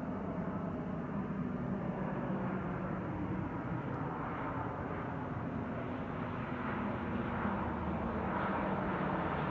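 Boeing C-17 Globemaster III's four turbofan engines passing overhead: a steady jet rumble with a low drone, growing slightly louder toward the end.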